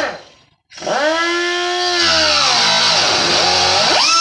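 Air-powered die grinder with a cutoff wheel spinning up about a second in to a loud, high whine, cutting into a sheet-metal cabinet. Its pitch sags in the middle and climbs back near the end.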